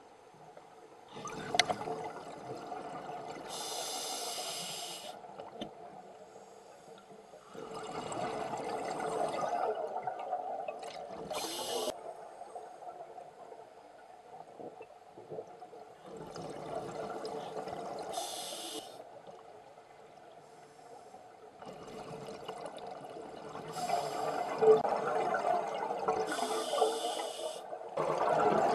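Scuba diver breathing underwater through an open-circuit regulator. A short hissing inhale comes about every seven seconds, each followed by a few seconds of bubbling exhale.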